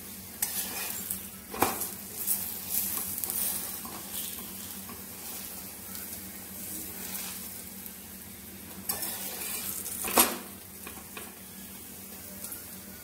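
Stuffed paratha sizzling in ghee on an iron tawa while a steel spatula presses it down and scrapes it round the pan, so that it crisps and browns all over. The spatula knocks sharply on the tawa twice, about one and a half seconds in and again about ten seconds in.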